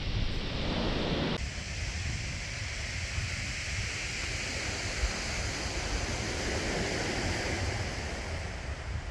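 Surf breaking and washing on a shingle beach, with wind rumbling on the microphone. The sound shifts abruptly about a second and a half in.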